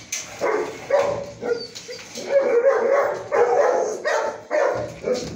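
Dogs barking and yipping in a run of about ten short, fairly high-pitched calls.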